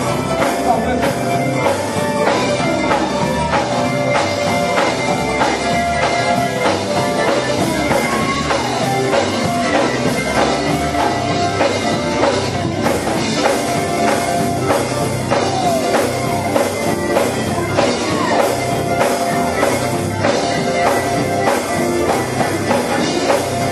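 Live gospel band music with electric guitar, keyboard and drums playing to a steady beat.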